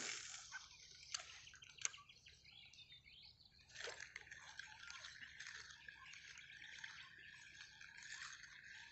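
Near silence at the waterside: a short rush of noise at the very start, a couple of faint ticks, then a faint steady high hum from about four seconds in.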